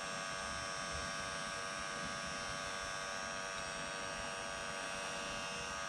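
Heat gun running steadily, its fan motor giving an even hum with several constant high tones, as it warms a part during the catch can install.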